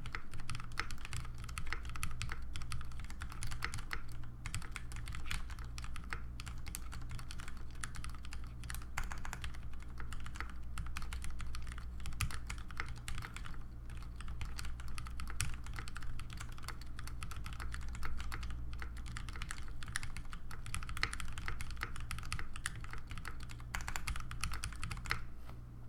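Continuous typing on a custom mechanical keyboard with lubed Cherry MX Speed linear switches on 72 g gold springs and GMK keycaps: a dense, irregular run of key clicks.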